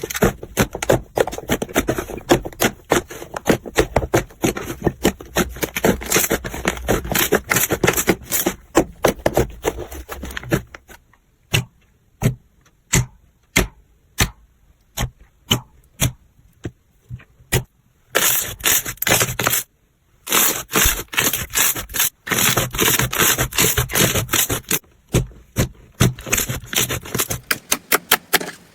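Slime being squeezed and poked by hand, making dense crisp crackling and popping clicks. In the middle the crackle thins to single sharp pops about twice a second, then turns dense again.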